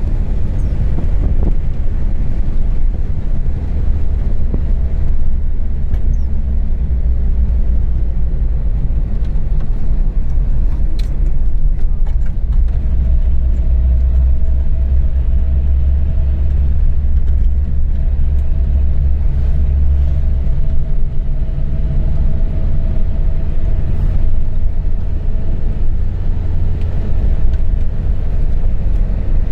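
A loud, steady low rumble with a faint steady hum above it.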